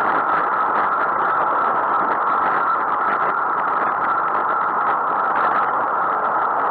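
Steady rush of wind and road noise on a bicycle-mounted camera while riding at speed.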